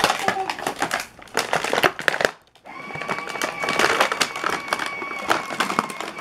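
Crinkling and crackling of cardboard and plastic toy packaging being handled, mixed with the clicking and clattering of small plastic toy pieces, with a steady high tone from about three to five seconds in.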